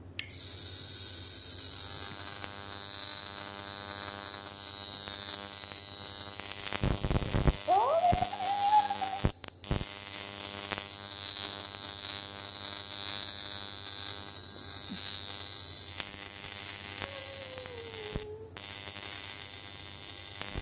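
High-frequency facial machine buzzing steadily, with a crackling hiss, as its gas-filled glass mushroom electrode glows against the skin through cotton. A few knocks come about seven seconds in.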